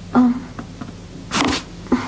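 A person's short grunt, then a sharp breathy exhale, with a brief click near the end.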